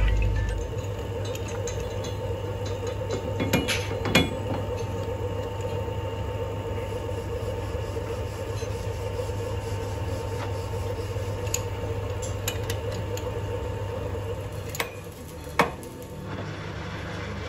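Scattered metal clinks and knocks as a disc harrow hub casting is set in a lathe's jaw chuck: the chuck key and jaws being tightened, then sharp hammer taps near the end to seat and true the casting. A steady low machine hum runs underneath.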